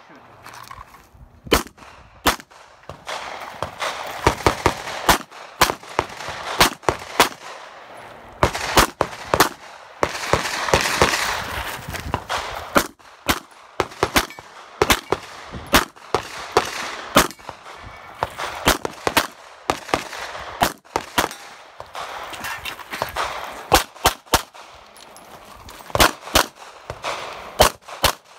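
Semi-automatic pistol fired in quick pairs and short strings, with gaps of a second or so between strings. A burst of rushing noise comes about ten seconds in.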